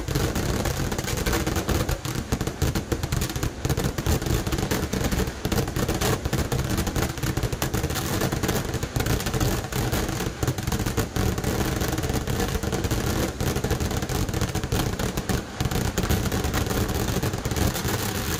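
A Kerala vedikkettu fireworks barrage: firecrackers and aerial shells exploding in a dense, unbroken roll of bangs over a deep rumble.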